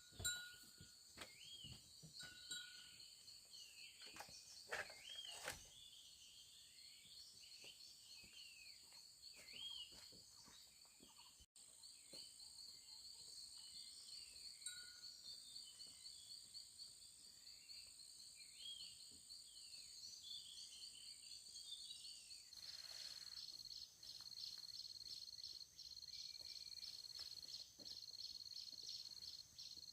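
Faint rural outdoor ambience: a steady, pulsing high-pitched insect chorus with repeated short bird chirps over the first two-thirds and a few light clicks. The insect sound thickens about two-thirds of the way through.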